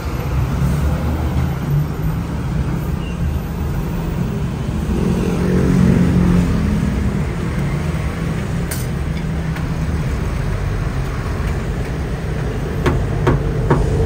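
Steady road traffic noise from a busy street, with one vehicle passing louder about five to seven seconds in. A few sharp clicks near the end.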